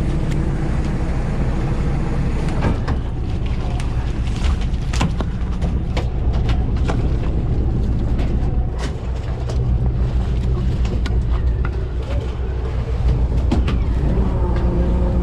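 A fishing boat's motor running steadily as a low, even drone. Scattered sharp knocks and clicks of work on the deck sound over it.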